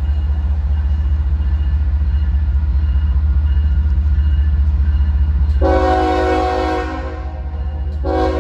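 An approaching freight train's diesel locomotive rumbles low and steadily. About two-thirds through, its multi-note air horn sounds one long blast, and a shorter blast begins near the end, a grade-crossing horn signal.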